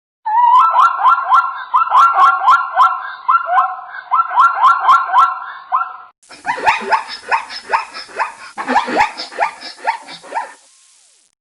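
Zebra calling: a rapid run of short, yelping barks, about three a second. About six seconds in a second, hissier recording of the same kind of barking calls follows, ending about a second before the end.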